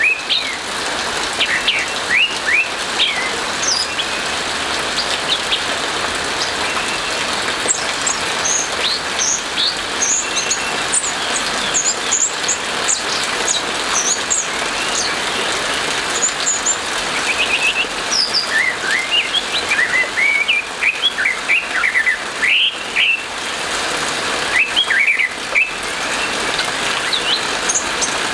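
Orange-headed thrush singing in loose bursts of quick, varied whistled notes and rising chirps, with high-pitched phrases a third of the way in and a busier run in the second half, over the steady hiss of rain.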